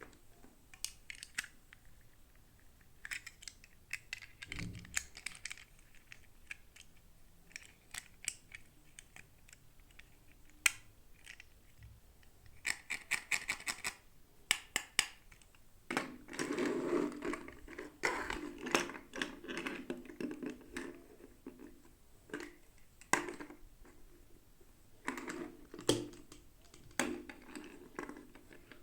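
Toy packaging and small plastic parts being handled during an unboxing: scattered light clicks and taps, with bouts of crinkling and rustling and a longer spell of it past the middle.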